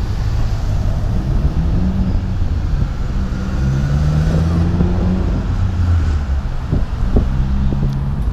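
Street traffic: car engines running and passing close by, with a low steady hum that shifts in pitch, over a low rumble of wind on the microphone.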